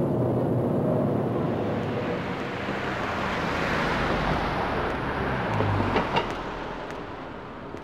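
Street traffic: a vehicle goes by, its noise swelling to a peak about midway and then fading, with a few sharp clicks and a low thump about six seconds in.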